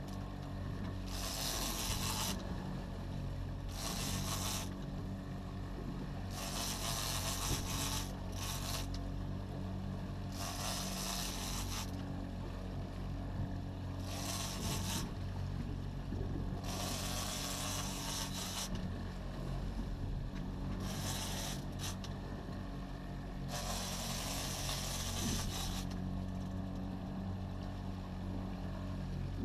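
A fishing boat's engine running with a steady low hum, with repeated bursts of hiss, each about a second long, every second or two.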